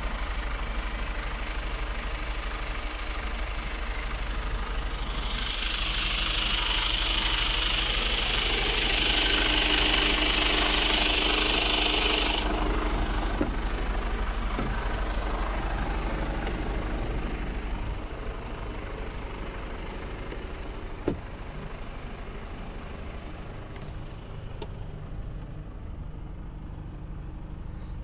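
Mercedes-Benz Actros 2548 tractor unit's 480 hp straight-six diesel idling steadily. A steady hiss joins it about five seconds in and lasts about seven seconds, and a single sharp knock comes about twenty-one seconds in.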